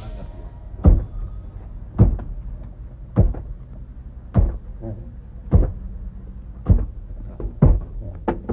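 Heavy, regular pounding thuds, about one a second, of glaze stone being pounded into fine powder.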